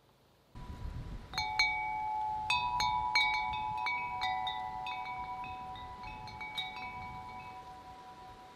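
Tubular metal wind chime swinging in the breeze: its tubes are struck again and again, each ringing its own held note, the notes overlapping and slowly fading toward the end. Wind noise on the microphone comes in about half a second in.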